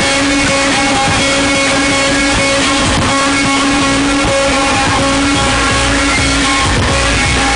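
Loud guitar music played at high volume through a car's trunk-mounted sound system, steady and unbroken.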